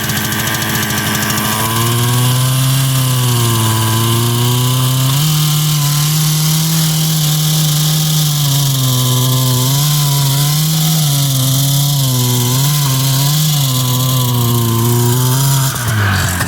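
A 1981 Ski-Doo Citation SS two-stroke snowmobile engine running on gasoline with vodka sprayed in. Its pitch steps up a couple of times and then rises and falls repeatedly as the throttle is worked.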